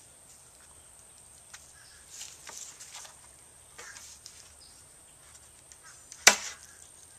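Faint handling noises, then one sharp wooden crack about six seconds in: a mahogany handle strip popping off the daggerboard as it is pulled, freed where old varnish had stuck it in place.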